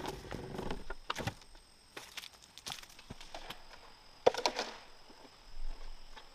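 Scattered sharp knocks and rustling, as of something being handled; one knock about a second in and a louder one near the end.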